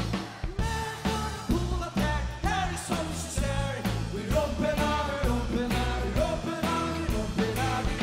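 Band music: a rock-pop song with a sung vocal line over a steady drum beat and bass.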